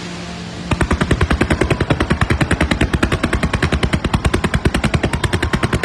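Fireworks: a hissing crackle, then from under a second in a rapid, even string of sharp bangs, about a dozen a second, like a firecracker string or a rapid-fire barrage going off.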